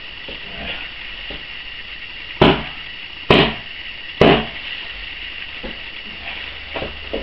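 Three loud slaps on a wrestling mat, evenly spaced a little under a second apart, with the rhythm of a referee's three-count for a pinfall.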